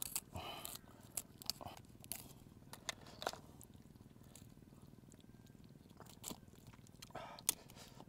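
Raw spiny lobster shell being snipped with scissors and pulled apart by hand: a series of sharp cracks and snaps, most in the first three seconds or so, with two more near the end.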